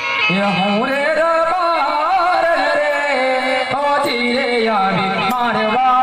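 A performer singing an ornamented, wavering folk melody through a microphone and PA, over steady held notes of instrumental accompaniment; the voice comes in a moment after the start.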